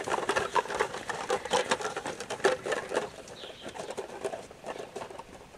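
Irregular crunching and rustling of steps on a sand arena, a horse's hooves and a handler walking around a burlap sack lying on the ground, getting quieter toward the end.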